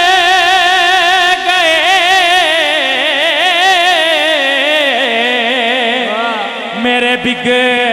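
Male voice singing a Punjabi devotional kalam into a microphone, drawing out one long note that wavers in a quick vibrato. The voice slides slowly down in pitch and drops to a low held note near the end.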